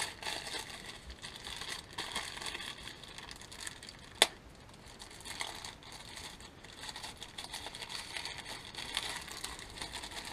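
Paper packaging crinkling and rustling as it is unwrapped by hand, with one sharp click about four seconds in.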